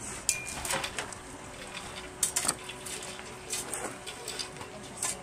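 Scattered scrapes and clicks of hands and tools working gravelly soil around a plastic drain box, over a faint steady hum.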